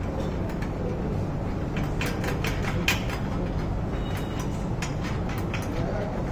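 Steady low hum with light metallic clicks and taps, clustered about two to three seconds in, from hands working on the mini crane's steel stand and hoist mounting.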